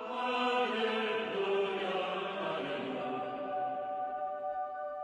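Soundtrack music of sustained, chant-like voices holding long notes, gradually getting quieter.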